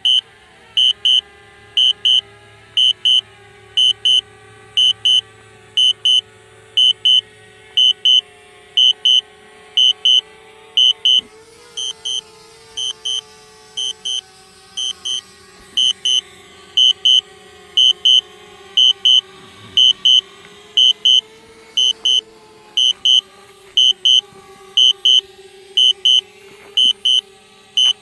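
Loud high electronic warning beeps in quick double pairs, repeating evenly more than once a second, during a DJI Spark's automatic landing. Underneath, the drone's propellers hum steadily, drifting slightly in pitch.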